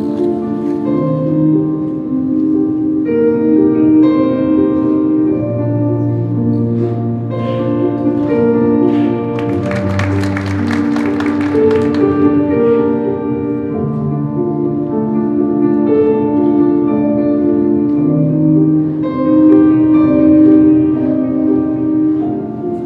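Figure skating free-skate program music played over an ice rink's sound system: a slow instrumental piece of held notes over a low bass line. About ten seconds in, a brief rush of noise rises above the music.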